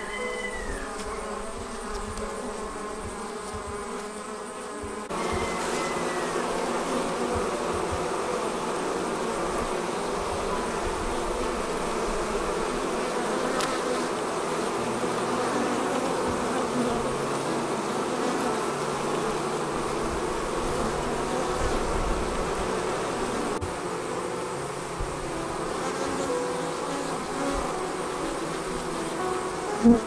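Many honey bees buzzing in flight around a hive entrance, a dense, steady hum that grows fuller and louder about five seconds in.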